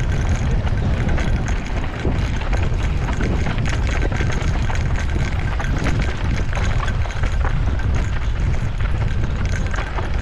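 Wind buffeting the microphone of a mountain bike's helmet or handlebar camera on a fast descent, with the tyres and frame rattling and crunching over rough, dry dirt.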